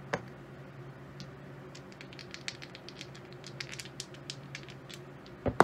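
Pair of dice rattled in the hand as a run of light, quick clicks, then thrown onto the felt craps table, landing as several sharp knocks near the end. A faint steady hum runs underneath.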